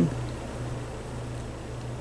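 A pause with only quiet room tone: a steady low hum under faint hiss.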